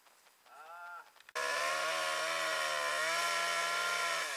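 Two-stroke chainsaw revved briefly, then held at high throttle from about a second and a half in, its pitch wavering slightly under load. The pitch falls as the throttle is let off near the end.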